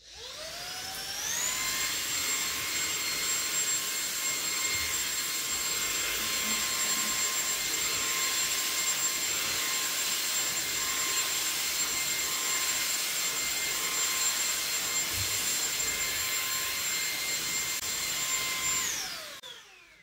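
YOKEKON cordless stick vacuum's brushless motor switching on and spinning up to a steady high whine with rushing air, then winding down and stopping near the end.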